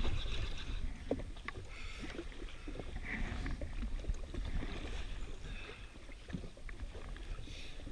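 Small waves slapping and splashing against the hull of a drifting jet ski in irregular knocks, with wind rumbling on the microphone.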